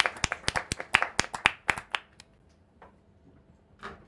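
Small audience clapping after a song. The claps thin out and stop about two seconds in, with a few scattered claps again near the end.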